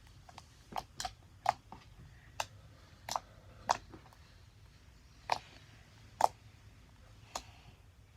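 Fluffy slime being squeezed and poked, its trapped air pockets popping in sharp clicks, about nine of them at irregular intervals.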